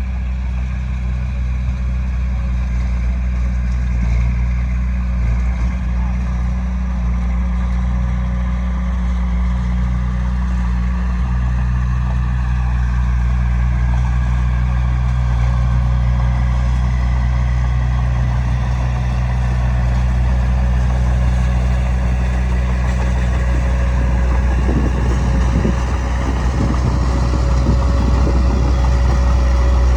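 Heavy diesel earthmoving machinery running steadily with a low, constant engine drone. A rough rattle joins in for the last few seconds.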